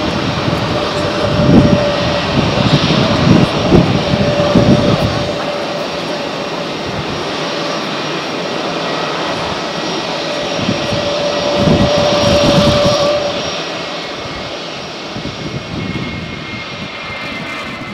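Jet engines of a twin-engine Airbus A320 airliner rolling along the runway: a steady jet roar with a held whine. There is a gusty low rumble for the first few seconds, a brief swell later, and the sound fades near the end.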